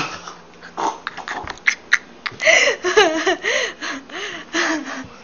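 A person's wordless vocal sounds, wavering and bending in pitch for a couple of seconds, with short breaths and a couple of sharp clicks before them.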